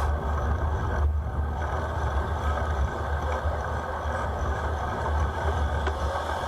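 Steady low rumble of wind and road noise while riding a bicycle in traffic.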